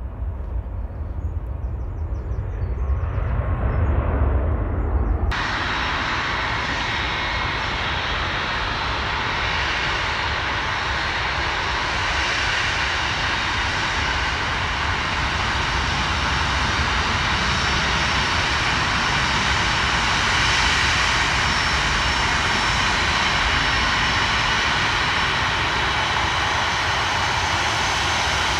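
Jet airliner engine noise: a low rumble that swells over the first few seconds, then, after an abrupt change about five seconds in, a loud, steady rush of engine noise.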